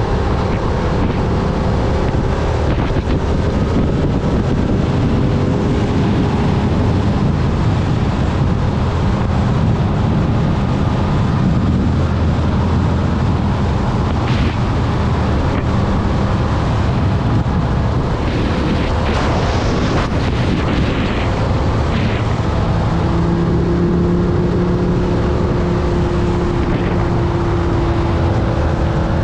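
Yamaha YZF-R7's parallel-twin engine running at steady cruising speed, mixed with heavy wind rush on the microphone. About three-quarters of the way through, the engine note drops to a lower pitch.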